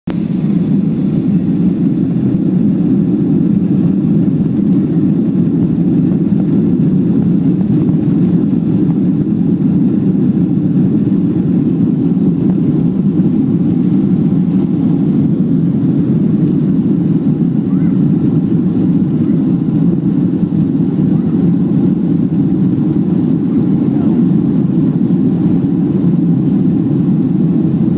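Steady, loud drone of a Boeing 737's jet engines heard inside the passenger cabin, with no rise or change in pitch.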